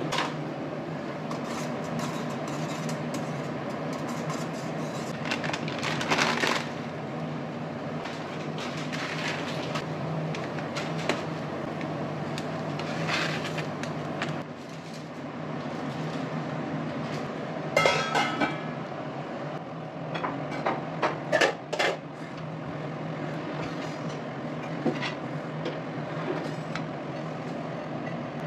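Steady kitchen hum while cooking in a stainless steel pan on a gas stove, with short clinks and scrapes of utensils against the pan. The loudest is a ringing metallic clink a little past halfway, followed soon after by a quick run of scrapes.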